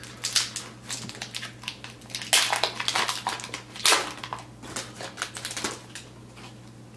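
Foil wrapper of a hockey card pack being torn open and crinkled by hand: a run of irregular crackles and rustles, loudest around the middle, dying away about a second before the end.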